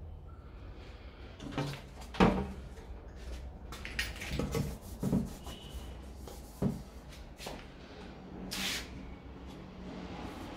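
Irregular handling noises at a car's tailgate: knocks, clicks and rustles of parts being moved, with one sharp knock about two seconds in and a short hiss near the end.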